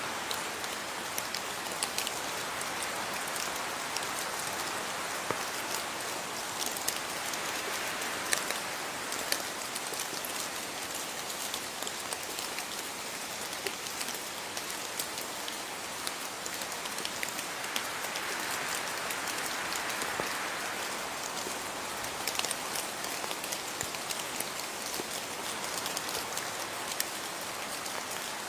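Steady rain falling, an even hiss scattered with many sharp drips and drop impacts on a hard surface.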